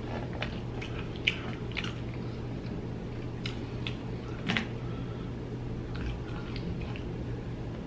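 Close-up chewing and wet mouth sounds from eating a soft piece of food dipped in cheese sauce: scattered short clicks and smacks over a faint steady low hum.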